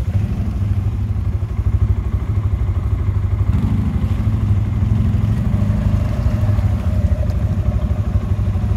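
ATV engine running steadily at low revs, a constant low rumble without revving up or down.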